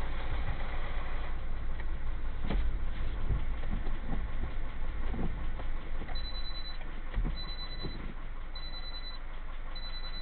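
Steady low rumble and hiss with a few faint knocks. From about six seconds in, a high electronic beep sounds four times, roughly once a second.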